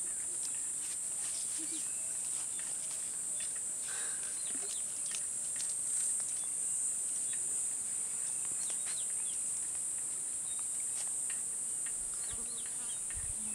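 A steady, high-pitched chorus of insects, with scattered short bird chirps over it.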